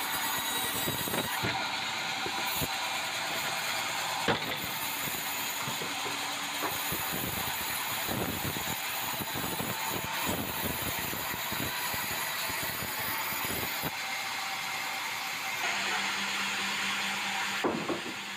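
Band sawmill cutting a red meranti log as the log carriage runs along its rails: a steady, dense sawing noise with scattered knocks and rattles. Near the end a steady low hum comes in, followed by a sharp knock.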